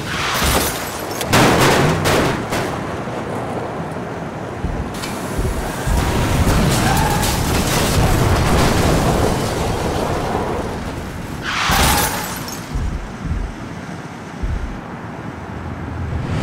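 Loud boom and crash sound effects over music, with sharp hits about half a second in, near two seconds, and again near twelve seconds.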